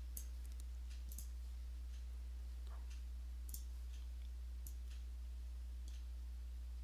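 Faint, scattered clicks of a computer mouse at irregular intervals, over a steady low electrical hum.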